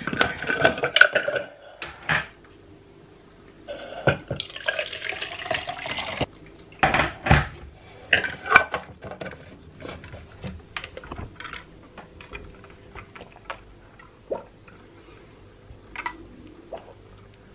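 A plastic tumbler with a screw-on straw lid being opened, filled and closed, with clicks and knocks of the plastic lid and cup. About four seconds in, water runs into the cup for roughly two seconds.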